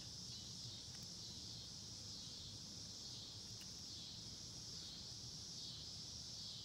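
Faint, steady, high-pitched chirring of insects in the background, over a low hum.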